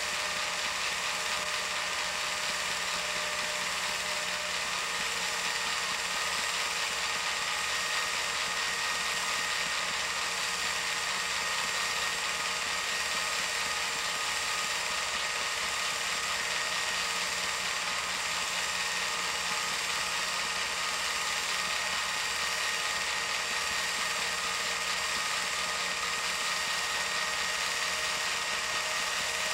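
Home-movie film projector running: a steady motor whir with a fast, even mechanical clatter from the film transport.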